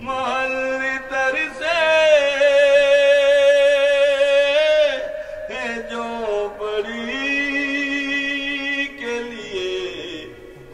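A man chanting unaccompanied, drawing out long melodic phrases with wavering held notes: one phrase ending about five seconds in, a second that fades near the end.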